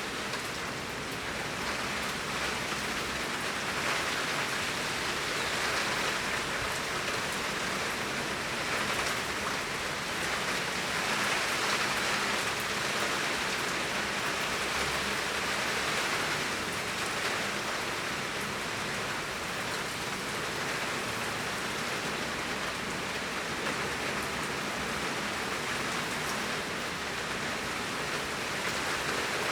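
Torrential rain falling steadily, a dense even hiss of downpour that swells gently a few times.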